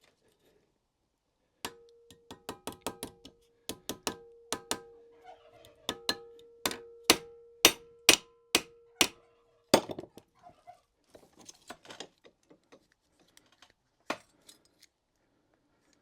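Hammer blows on metal, about two a second for some eight seconds and loudest near the end, with a steady metallic ring carrying through them: a rake rivet being hammered to mushroom it out against a metal support. Lighter clinks and taps of the metal being handled follow.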